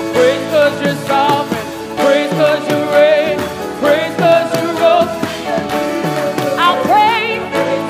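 Gospel praise team singing into microphones over instrumental accompaniment, a lead voice bending and wavering with vibrato above the other singers.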